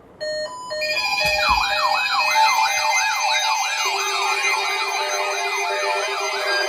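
Several weather-alert radio receivers sounding their alarms together, triggered by the NOAA Weather Radio required weekly test: a few short beeps, then a warbling siren tone that rises and falls about three times a second, joined about four seconds in by a steady low tone.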